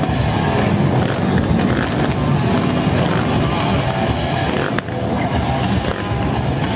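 Loud live rock music, with a drum kit and electric guitar playing a dense, steady texture.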